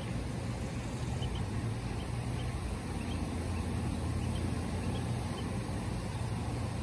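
A steady low hum, with a few faint, short peeps from ducklings scattered through it.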